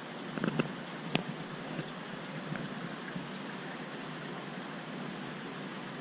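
Steady hiss of running water from the aquarium's tanks and their equipment, with a few light clicks in the first second or so.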